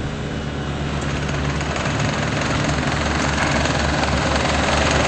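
Kubota diesel engine of a Bobcat T190 track loader running. Its pitch steps up slightly near the start, and it grows louder and noisier over the next few seconds as the engine speeds up.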